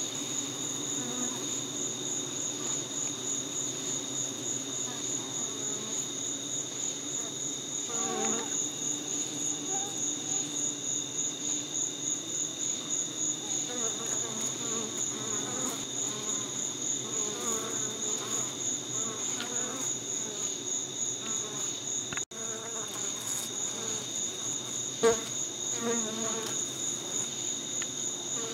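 Crickets chirping steadily in the night, a high rapidly pulsing trill, over a low hum of honeybees clustered at the hive entrance. A short knock sounds about 25 seconds in.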